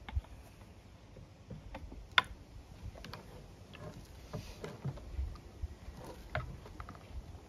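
Scattered light clicks and knocks of a string trimmer's fuel cap and a fuel bottle being handled while its tank is filled, with one sharper click about two seconds in.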